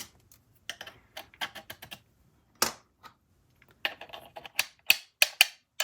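Hard 3D-printed plastic puzzle-box parts clicking and knocking as they are handled, with the magnet sidewall piece being worked in and out of place. Scattered light clicks, one louder knock midway, then a quick run of sharper clicks near the end.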